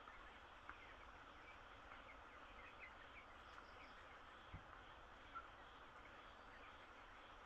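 Faint, scattered peeping of broiler chicks over a steady background hiss, with a few soft knocks, one of them a low thud about halfway through.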